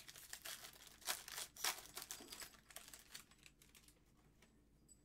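Trading cards and plastic being handled up close: quick crinkling and scratchy rustles, with small clicks, that thin out and fade after about three and a half seconds.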